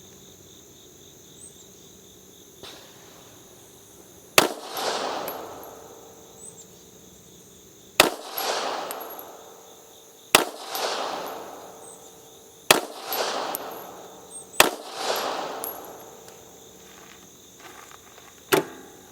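Six single pistol shots from a P83 in 9mm Makarov, fired at uneven intervals two to four seconds apart, each crack trailing off in a long echo. Insects chirp steadily underneath.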